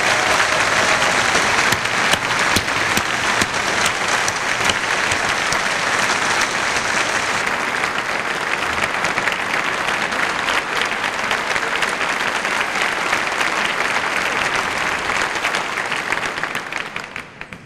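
Concert hall audience applauding steadily, dying away near the end.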